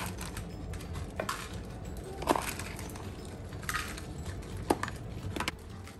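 Dry cat kibble being scooped from a plastic container and dropped into cats' feeding bowls: about six scattered sharp clicks and clinks, the loudest a little over two seconds in.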